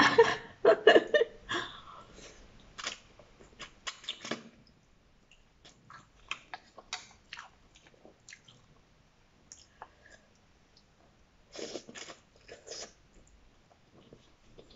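A person slurping and chewing noodles close to the microphone: a run of mouth noises over the first four seconds or so, then scattered small clicks, and another run about twelve seconds in.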